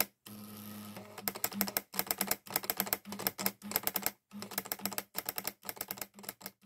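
Sharp CE-150 four-pen plotter printing, its stepper motors ticking rapidly in short trains as the pen carriage and paper roller move. A brief steady whir comes about a third of a second in.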